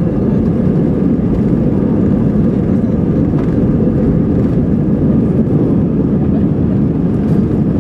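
Airbus A320-200 cabin noise during the takeoff roll, heard over the wing: engines at takeoff power and the rumble of the wheels on the runway make a steady, loud, low-pitched noise.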